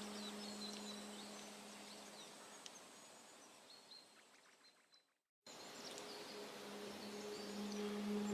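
Small birds chirping and twittering in short high calls over a faint forest ambience with a thin steady high tone, and a low sustained musical drone fading out under them. Everything fades to silence about five seconds in, then fades back up as the drone returns.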